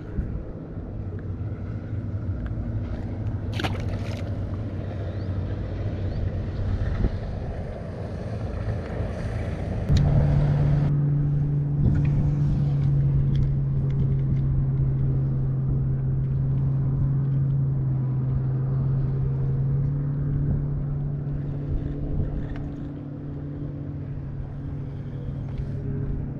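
Bow-mounted electric trolling motor of a bass boat running with a steady hum, which steps up in pitch and loudness about ten seconds in as the motor is sped up, over wind and water noise, with a couple of sharp clicks before that.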